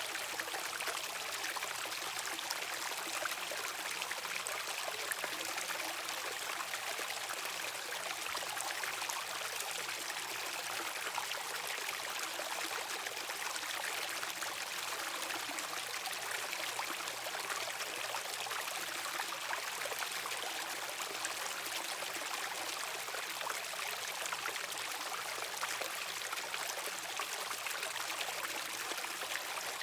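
Mountain valley stream flowing steadily, an even rush of running water with no breaks.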